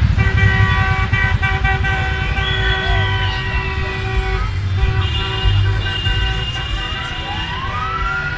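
Car horns sounding in long held blasts over the rumble of slowly passing car engines, with siren-like wails rising and falling over them, the last one climbing near the end.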